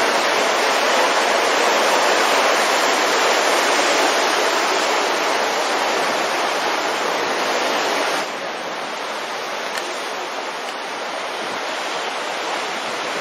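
Sea surf breaking and washing over rocks below sea cliffs, a steady rushing noise that drops suddenly to a softer level about eight seconds in.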